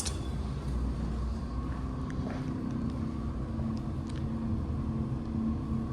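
Steady low mechanical hum with a faint steady high tone, and a few faint ticks.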